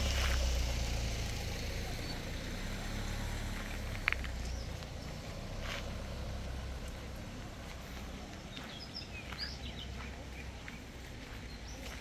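Outdoor walking ambience: a low rumble that fades away over the first few seconds, one sharp click about four seconds in, and faint short chirps later on.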